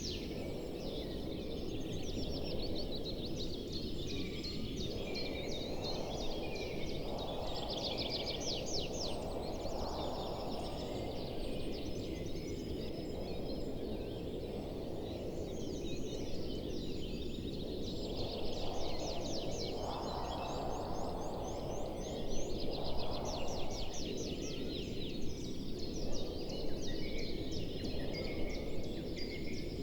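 Outdoor wild ambience: a steady low rush with repeated bursts of rapid high-pitched trilling calls from animals, coming every few seconds.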